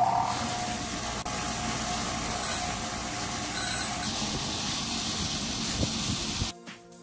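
Bench grinder running with small metal pins held against its grinding wheel: a steady harsh hiss of metal being ground, cut off suddenly near the end.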